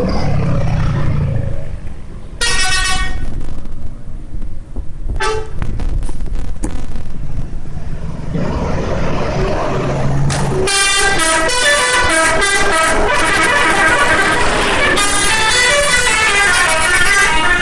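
Telolet multi-tone musical air horn on a Scorpion Holiday bus. It gives a short blast about two and a half seconds in and another brief one around five seconds. From about ten and a half seconds it plays a long tootling run of notes stepping up and down in a tune. Between the blasts there is a low engine rumble.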